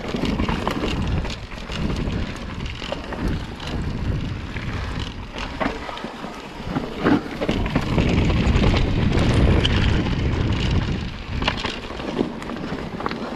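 Mountain bike rolling over a rocky trail: a steady rush of tyre and wind noise on the microphone, broken by frequent knocks and rattles as the wheels hit rocks. It gets louder for a couple of seconds about eight seconds in.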